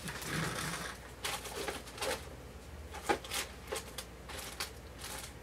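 Small plastic embellishments and their packets being sorted through by hand: light, irregular clicks and rustling.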